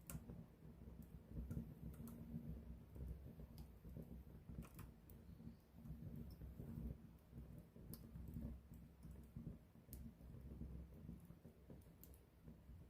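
Wood campfire burning: a low, fluttering rumble of flames with scattered sharp crackles and pops from the burning wood.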